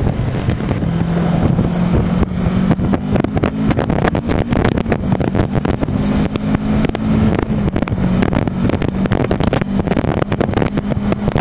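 Kawasaki Versys 650's parallel-twin engine running at a steady cruise, with wind buffeting the microphone.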